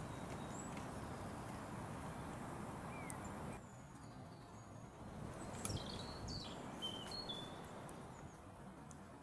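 Outdoor woodland ambience: a steady background hiss with small birds chirping, several short high chirps and whistles bunched in the second half.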